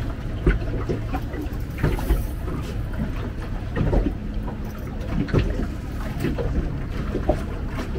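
Small waves slapping and knocking irregularly against the fibreglass hull of a drifting boat, over a steady low rush of wind on the microphone.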